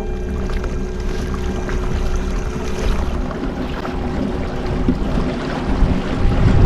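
Water and wind rushing around a moving fishing kayak, a steady noise that grows louder near the end, with a faint steady hum underneath.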